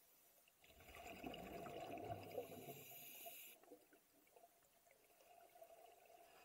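Scuba exhaust bubbles underwater: a burst of bubbling from a diver's exhalation through a regulator, lasting about three seconds and cutting off suddenly.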